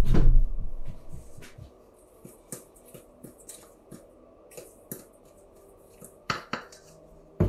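A low rumble fades out over the first second. Then come scattered light clicks and clinks of kitchen utensils and dishes being handled on a counter, with two sharper clicks near the end.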